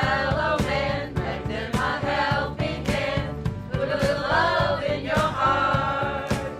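A group of voices singing a song together in chorus, over a steady drum beat.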